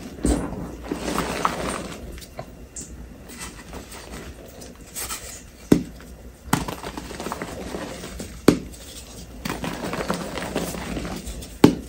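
Reformed gym chalk being broken and crumbled by gloved hands into loose chalk powder: soft crunching and powdery rustling, with a few sharp snaps as blocks crack apart.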